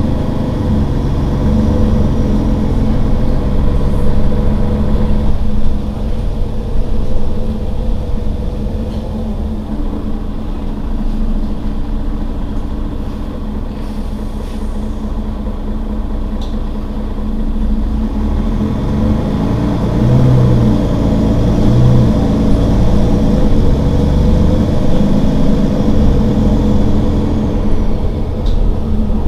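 Mercedes-Benz Citaro Facelift city bus's engine idling at a standstill, a steady low hum that grows louder in the last third.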